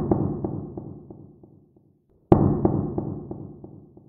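Deep booming impact sound effects, each starting suddenly and dying away over about two seconds with a faint crackle in the tail. One sounds at the start and a second comes about two and a half seconds in.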